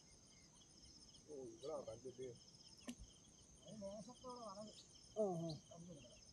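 Insects chirring faintly in a steady, high-pitched pulsing drone, with a few short voice-like calls in between, the loudest about five seconds in, and a single sharp click near the middle.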